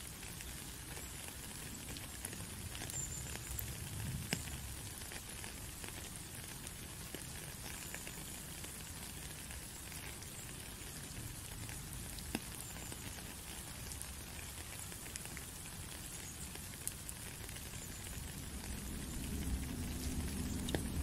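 Steady rain falling on a puddle and wet ground, an even hiss with scattered sharp drop ticks. A low rumble swells in the last couple of seconds.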